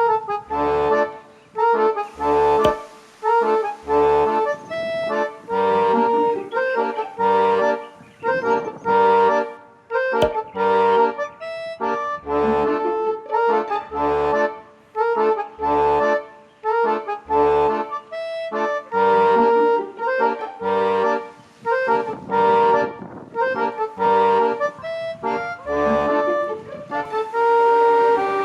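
Background music led by an accordion, with a steady beat of bass notes.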